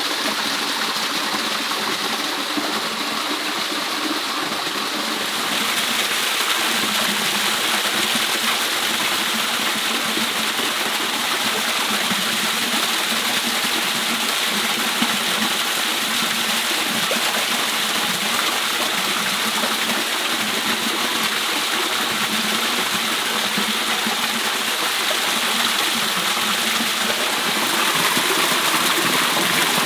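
Small waterfall pouring into a shallow rocky stream pool: a steady rush of falling water, a little louder about five seconds in and again near the end.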